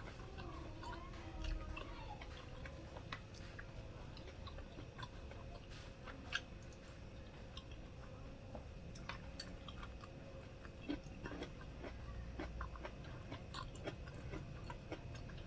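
A person chewing food close to the microphone, with soft wet mouth clicks and smacks scattered throughout.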